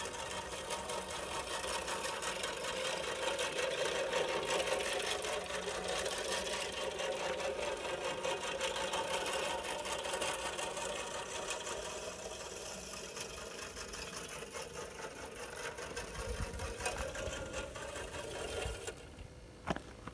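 Homemade radio-controlled lawn mower running, its motor and spinning cutter whirring steadily as it drives over the grass. It grows louder in the first few seconds, then fades gradually and drops away near the end, followed by a single click.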